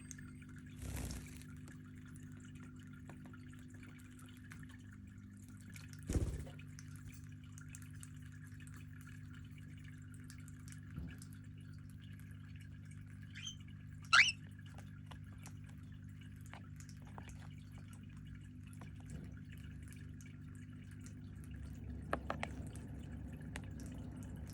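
Small pet parrots bathing in water: faint splashing and dripping, with a few louder knocks, over a steady low hum. One short rising chirp about halfway through is the loudest sound.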